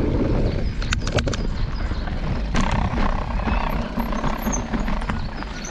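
Mountain bike rolling fast over a dirt and gravel trail: a steady rumble of tyre and wind noise on the camera's microphone, with a few sharp knocks and rattles from the bike over bumps about a second in and again midway.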